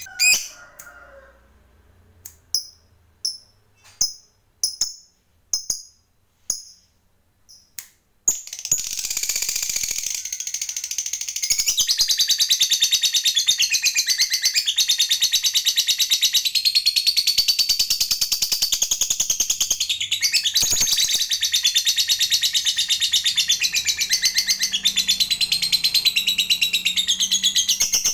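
Lovebird giving several single sharp chirps spaced under a second apart, then, about eight seconds in, breaking into a long unbroken rapid chattering trill that keeps going for some twenty seconds. This is the long 'ngekek' chatter that lovebird keepers prize.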